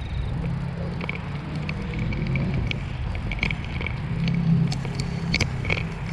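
Bicycle being ridden: a steady low rumble with scattered short clicks and rattles.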